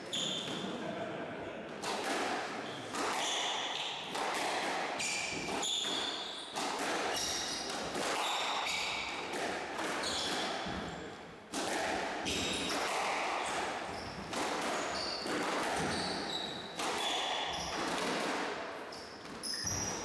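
Squash rally: the ball hitting rackets, walls and floor in a string of sharp, echoing hits, with sports shoes squeaking briefly on the wooden court floor.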